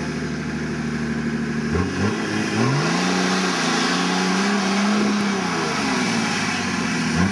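Off-road 4x4's engine running at a steady pitch, then revved up and down several times from about two seconds in, as the truck works its way up and over a culvert on a steep bank.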